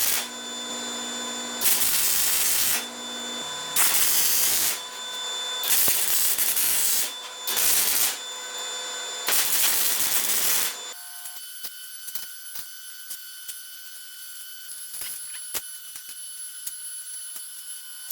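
Arc welding pole barn nails together: about six short welds, each a burst of roughly a second, with the machine's steady hum between them. After about eleven seconds the welding stops, leaving faint clicks and a steady high tone.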